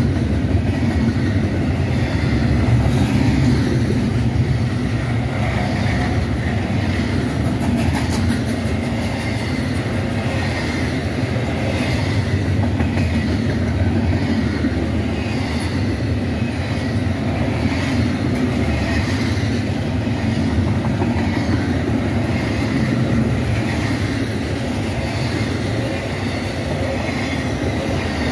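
Double-stack intermodal freight train passing at close range, its loaded container well cars' steel wheels rumbling steadily on the rails without letting up.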